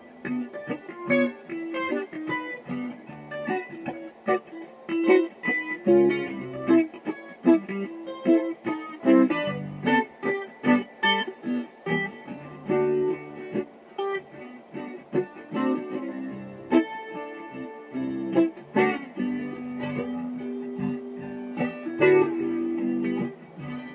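Electric guitar played solo: a stream of quick picked single notes, then a few notes held out longer near the end.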